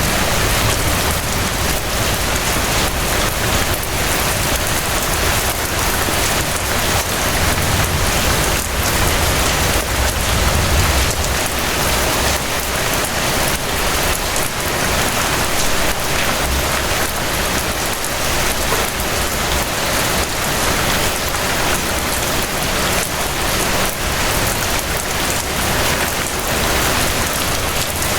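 Steady rain falling and pattering on surfaces, a dense even hiss of many drops with a low rumble underneath.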